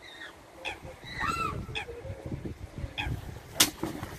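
Mute swan cygnet giving short, arched, wheezy calls several times, then a single loud splash about three and a half seconds in as it drops from the concrete bank into the water.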